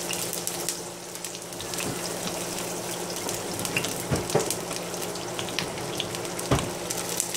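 Hot olive oil frying with a steady hiss and scattered small crackles, over a steady low hum. There are two soft knocks, about four and six and a half seconds in.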